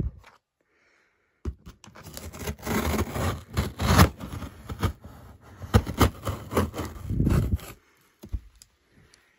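Scissors cutting and tearing through the taped seam of a corrugated cardboard box: a long run of scraping, crackling cuts with sharp clicks. It starts about a second and a half in and stops shortly before the end.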